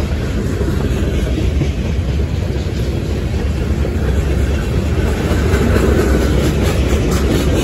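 Freight train's boxcars rolling past close by: a steady rumble of steel wheels on the rails.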